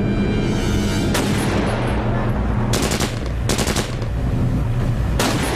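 Gunfire in four short bursts, the first about a second in and the last near the end, over a steady low drone.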